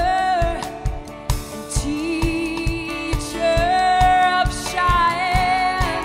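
Live folk-rock music: a steel-string acoustic guitar strummed over a steady beat of low drum thumps about twice a second, with long held melody notes sung or played above.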